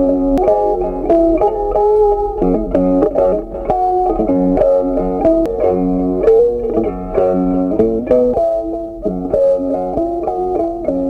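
Background music: a plucked guitar melody, one note following another in a steady line.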